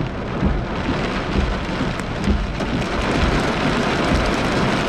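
Heavy rain pelting the roof and windshield of a moving car, heard from inside the cabin over the car's low road rumble; the downpour gets denser and a little louder about halfway through.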